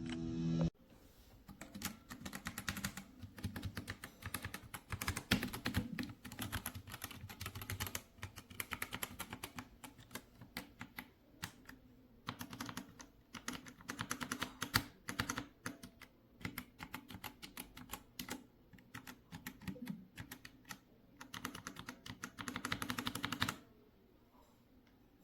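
Keyboard being typed on: fast runs of keystroke clicks with brief pauses, stopping shortly before the end.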